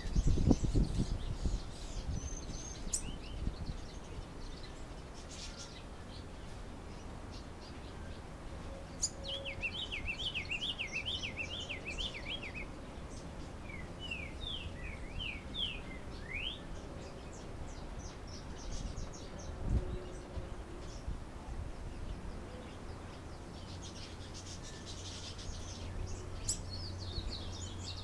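Diademed tanager (sanhaço-frade) singing its galloping ('galopeado') song. The song comes in bouts of quick, repeated high notes, one about nine seconds in, another a few seconds later, and again near the end. A low rumble is heard at the start.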